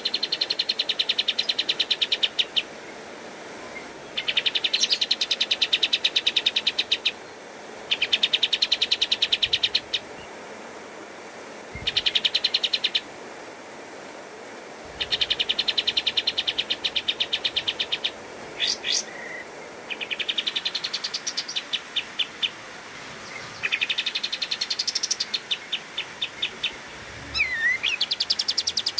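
Kapas tembak bulbul singing in its rapid-fire 'tembakan' style: a string of bursts of fast, closely repeated chattering notes, each burst lasting one to three seconds with short pauses between. Some bursts rise in pitch.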